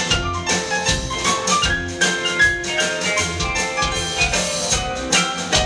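A live rock band plays an instrumental passage with no singing, made up of a drum kit keeping a steady beat under piano and guitars.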